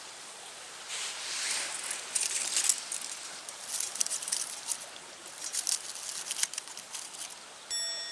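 Irregular bursts of crackling and rustling. Near the end a bright ringing ding with a clear pitch starts suddenly and rings on.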